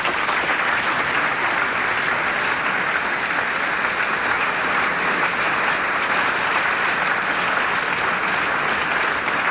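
A large audience applauding in a hall: dense, steady clapping.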